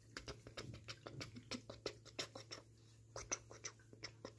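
Soft, irregular clicks and rustles of a hand holding and stroking a young ginger kitten on a fleece blanket, a few a second with a short lull near the middle, over a faint low hum.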